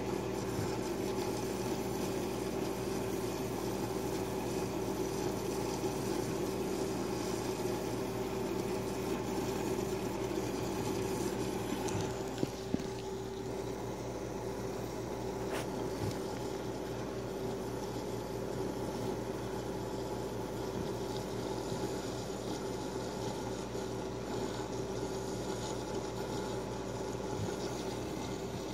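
AquaC Remora protein skimmer running on a reef tank: a steady pump hum under the hiss and trickle of water and bubbles passing through the chaeto-filled bubble box. The sound shifts slightly about twelve seconds in, with a couple of faint knocks.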